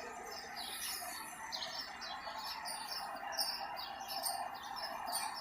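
Small birds chirping, many short high calls one after another, over a faint steady background hum.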